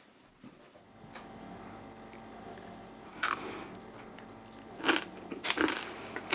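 A person biting and chewing crunchy food close to the microphone, with a few louder crunches from about three seconds in.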